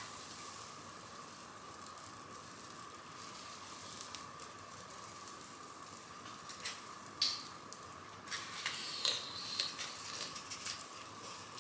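Wood fire in a fireplace hissing quietly, with scattered sharp crackles that thicken into a run of sizzling pops in the second half, as flame-colouring aurora powder burns on the logs.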